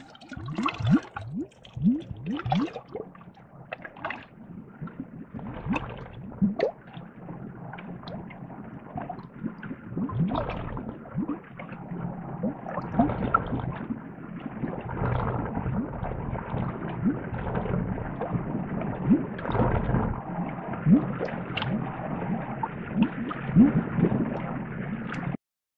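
Underwater bubbling: many bubbles gurgling with quick rising blips, sparse and separate at first, then thickening into a steady bubbling wash, cutting off suddenly near the end.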